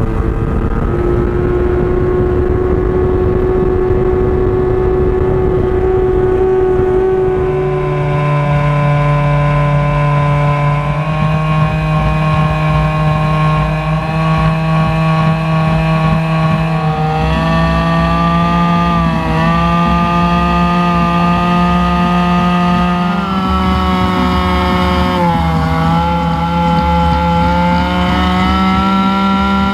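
Outboard motor on a fast boat running hard and steadily. The engine note climbs in steps over the stretch, with two short dips, over a rough low rumble.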